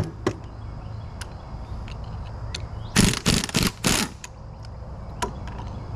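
A few light metal clicks, then a quick cluster of about four sharp metal knocks about three seconds in, as tools and parts strike a steel winch, over a steady low hum.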